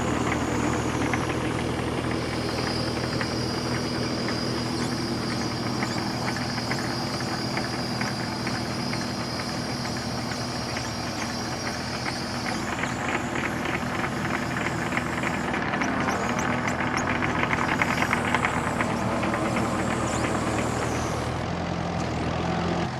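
Engine of a trench-digging machine running steadily, with a high steady whine from about two to twelve seconds in and a fast rattle of clicks.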